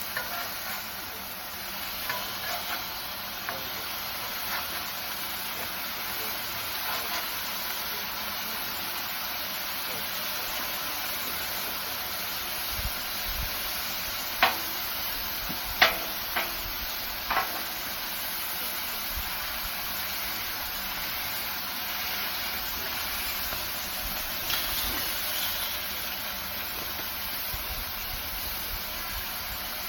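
Sausage meat patties and sage and onion stuffing patties sizzling steadily on a Blackstone griddle's steel plate, frying after being flipped. A few sharp clicks come about halfway through.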